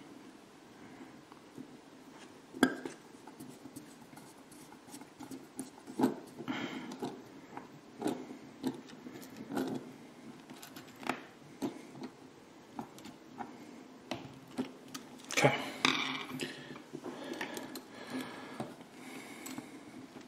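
Irregular small clicks, taps and light scrapes of a screwdriver against the plastic and metal parts of a model car's wheel and suspension assembly as a tiny screw is driven in, with a cluster of louder clicks about fifteen seconds in.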